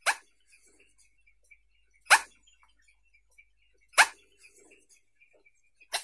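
Spoonbill giving four short, harsh, bark-like calls about two seconds apart, with faint high chirping in between.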